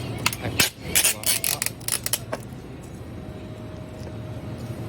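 A quick run of sharp plastic clicks and clacks as a smoothie cup is set into a convenience-store smoothie blending machine, then settling to a quiet hum.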